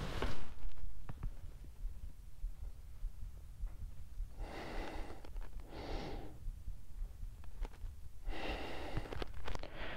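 A person breathing audibly while holding still with both arms raised to a ceiling fitting. A loud breath comes right at the start, then two pairs of in-and-out breaths, one pair around the middle and one near the end, over a low steady rumble.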